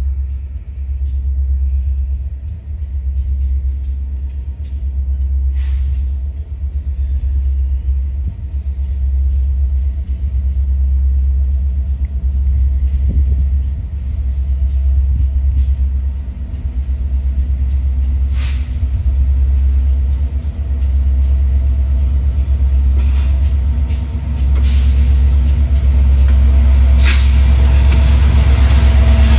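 Union Pacific diesel freight locomotives approaching under load, pulling grain loads up a grade: a deep steady engine rumble that grows louder near the end, with a few sharp knocks.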